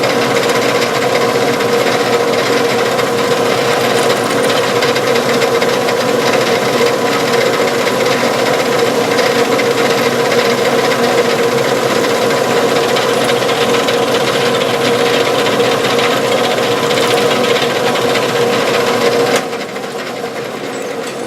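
Metal lathe running with a drill bit boring lengthwise through a metal hinge piece: a steady, loud scraping grind over a constant hum. It drops in level about two seconds before the end, as the cut eases off.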